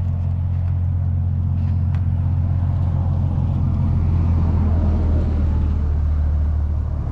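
A motor vehicle's engine running, a steady low hum that swells a little around the middle.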